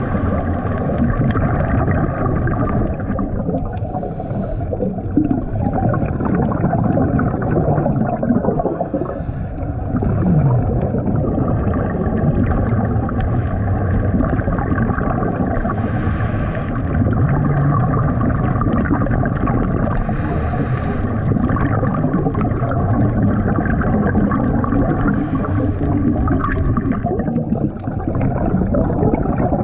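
Muffled, continuous underwater rumble and gurgling, with scuba regulator exhaust bubbles rushing out several times, a few seconds apart.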